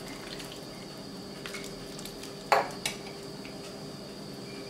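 Metal spoon clinking and scraping against a stainless steel saucepan as hot tomato sauce is poured out of it: one sharp clink about two and a half seconds in and a lighter one just after, with small ticks, over a steady faint hum.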